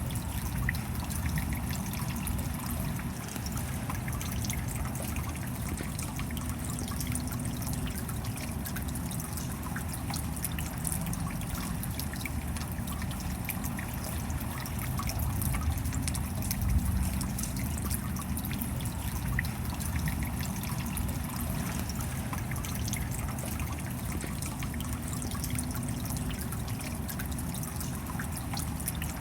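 Steady rain, with water trickling and dripping and many small drop ticks.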